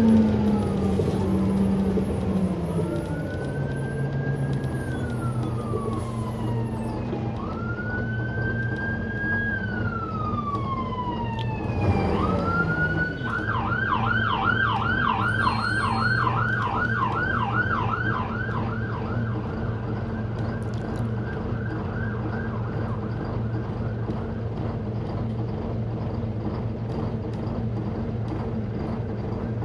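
Emergency-vehicle siren heard from inside a Volvo Olympian bus: long rising-and-falling wails for about ten seconds, then a fast yelp for several seconds. Underneath, the bus engine runs steadily, its pitch falling in the first few seconds as it slows.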